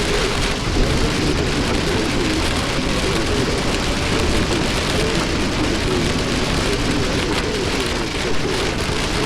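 Heavy rain beating steadily on a semi-truck's cab during a severe thunderstorm.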